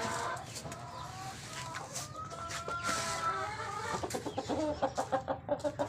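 Several chickens clucking and calling over one another, with one longer drawn call about two to three seconds in.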